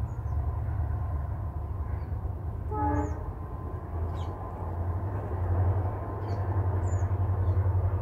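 Low, steady rumble of a passing heavy vehicle, with a short horn note about three seconds in. A few faint, high bird chirps sound over it.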